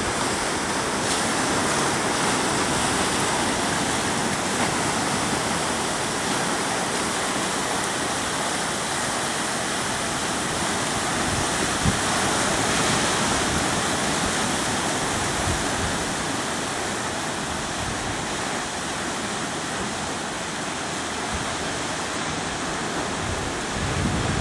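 Ocean surf breaking and washing on a sand beach, a steady roar of waves, with wind buffeting the microphone in low gusts and one brief knock about halfway through.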